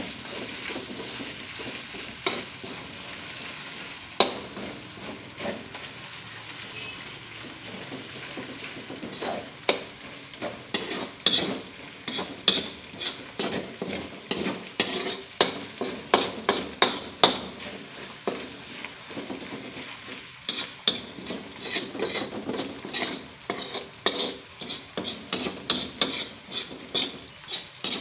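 Ground spice paste sizzling as it fries in oil in a metal wok, being fried until fragrant, while a metal spoon scrapes and clinks against the pan. The stirring strokes are few for the first several seconds, then come quickly and repeatedly through the second half.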